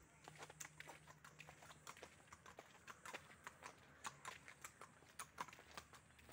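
Faint clip-clop of a walking horse's hooves on a paved road, an uneven run of sharp clicks several times a second.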